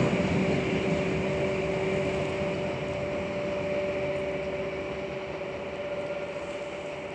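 An Ermak-series electric locomotive moving away after passing, its sound fading steadily: a steady electric hum of two even tones over the rumble of the train.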